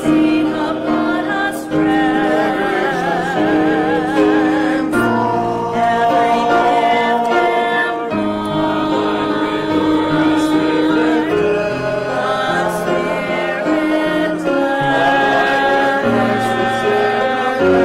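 A small mixed church choir singing an anthem in parts with keyboard accompaniment. The voices hold long notes with vibrato over sustained low accompaniment notes.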